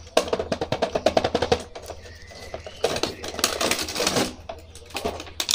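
Clear plastic blister packaging crackling and crinkling as a toy action figure is pulled out of its cardboard window box, in two spells of rapid sharp clicks.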